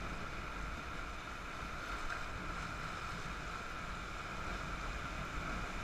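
River whitewater rushing steadily past a raft in a rapid, with a low rumble of wind on the microphone.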